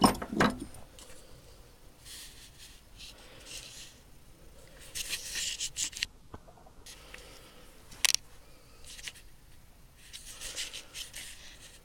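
Tools being handled in a tool box: scattered clicks and knocks, one sharp one about eight seconds in, between bouts of rustling and scraping.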